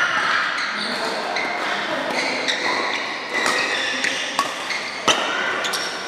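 Badminton rackets striking a shuttlecock during a rally in a large, echoing hall: sharp cracks a second or so apart, the loudest about five seconds in, with players' footsteps shuffling on the court.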